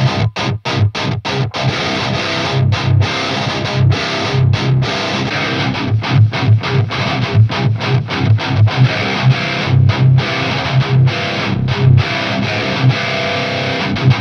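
Heavy distorted high-gain electric guitar riff on its own, with tight palm-muted low chugs broken by sharp stops. It is an ESP LTD NW-44 with a Bare Knuckle Aftermath pickup, played through a Peavey Invective 120 head and then, partway through, a Randall Diavlo RD100 head.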